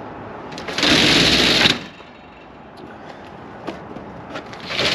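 Fire engine's slatted roll-up compartment door rattling for about a second as it is rolled, with a few light clicks of the door hardware after it. A second door starts to rattle open right at the end.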